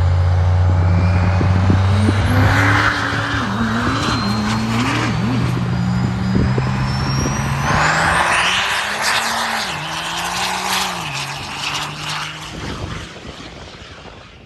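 Diesel pickup truck accelerating hard at a drag strip: the engine pitch climbs and drops several times as it shifts, a turbo whistle rises steadily, and the sound fades over the last few seconds as it pulls away.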